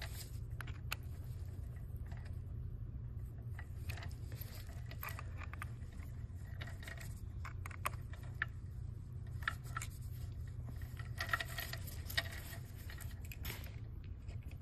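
Metal cleaning chains jingling, with scattered small clicks and scrapes of metal parts and tools being handled, a short cluster of rattles near the end; a steady low hum runs underneath.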